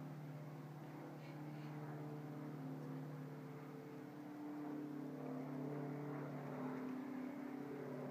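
Electric gate operator motors humming steadily as automated wrought-iron swing gates close, the pitch shifting slightly now and then.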